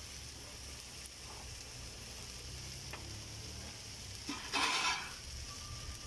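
Food sizzling steadily in a cooking pot, with one louder, brief surge of noise about four and a half seconds in.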